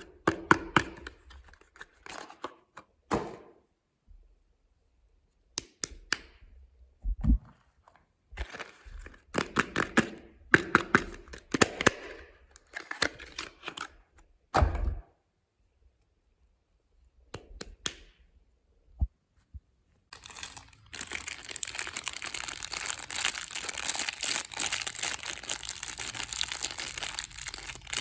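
Soap packaging being torn open and crinkled, in short crisp bursts with pauses between them, then turning into continuous crinkling about two-thirds of the way in.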